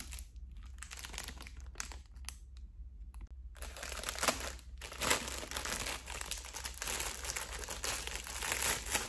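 Clear plastic packaging bag crinkling and rustling as it is handled and pulled open, with a brief lull about three seconds in, then steadier crinkling.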